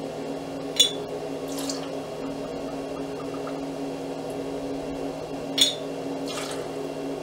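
Vodka poured from a glass bottle into a metal cocktail shaker tin holding ice, with two sharp clinks, one about a second in and one past the middle, over a steady low hum.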